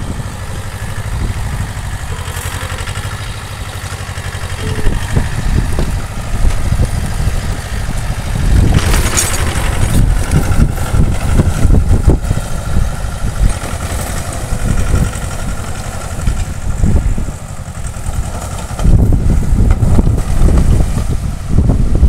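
Tractor engine running steadily as it pulls a rotary tiller through the soil between banana rows. Wind buffets the microphone in heavy gusts from about 8 seconds in and again near the end.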